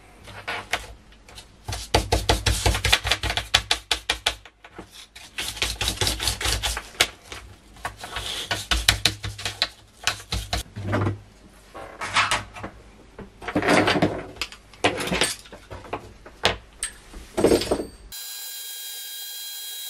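A brush scrubbing dirt off an Amiga A600 motherboard: runs of quick, scratchy bristle strokes with short pauses between them. Near the end the strokes stop and a steady hiss takes over.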